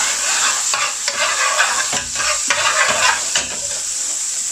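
Chopped garlic sizzling in hot oil and butter ghee in a metal pan, with a metal spoon scraping across the pan several times as it is stirred.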